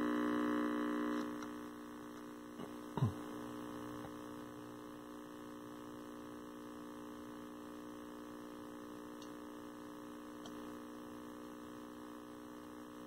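Steady mains hum from a 1973 Toshiba C321 hybrid tube/transistor colour TV just switched on, with no high voltage up yet. The hum is louder for about the first second, then settles lower. About three seconds in there is a click and a short falling tone.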